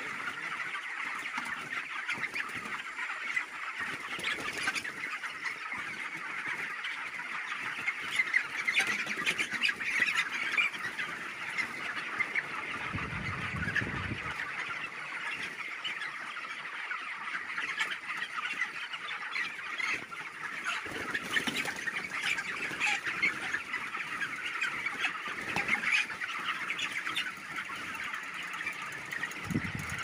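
A large flock of 26-day-old broiler chickens calling all at once, many overlapping calls merging into a steady din.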